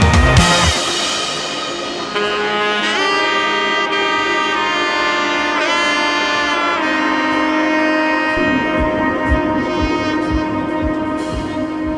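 Music of long held notes and chords, with a few sliding pitch changes, and short low thumps coming in under it about two-thirds of the way through.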